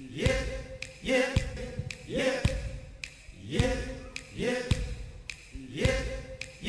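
A male singer's voice repeating a short, rising 'yep' over and over, about once a second, with low drum and bass thumps from a live band under each one.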